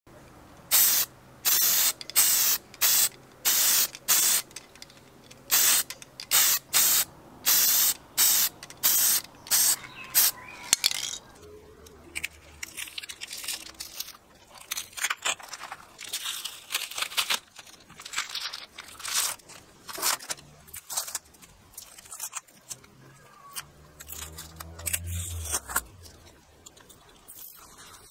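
Aerosol spray paint can hissing in a rapid series of short bursts for the first ten seconds or so. This is followed by crinkling and tearing as masking tape is peeled off the freshly painted cast drive wheel of a Leytool hand drill.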